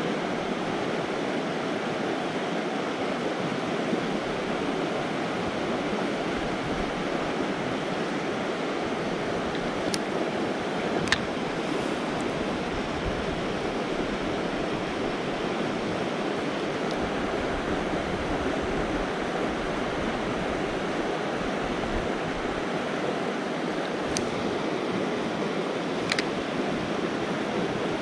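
Steady rushing of a fast mountain river running over rocks, an even noise that holds without a break. A few faint, sharp clicks stand out, the clearest about eleven seconds in and again near the end.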